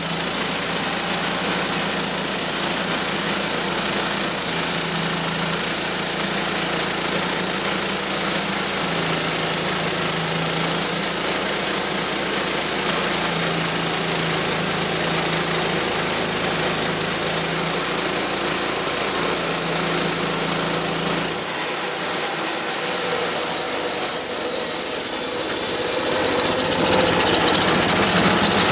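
Wood-Mizer LT10 portable band sawmill running under load, its engine driving the band blade through a large sweet gum log in one steady cut. The low hum thins out about three quarters of the way through.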